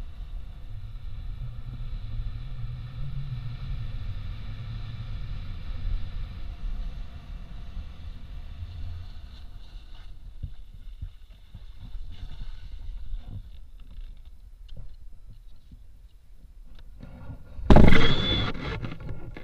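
Wind rushing over a pole-held action camera and skis sliding on snow as a skier runs down a groomed slope. Near the end comes a sudden loud crash as the skier falls and the camera hits the snow.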